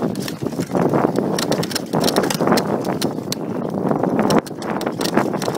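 Mountain bike descending a bumpy dirt trail: tyres rumbling over the dirt, with a constant rapid clatter of clicks and knocks as the bike rattles over the bumps.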